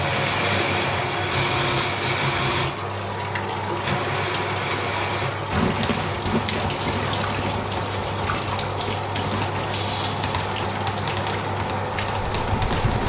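Dirty water pouring and splashing out of an opened drain pipe into a large plastic tub, over a steady low motor hum. The pouring hiss eases a little about two and a half seconds in.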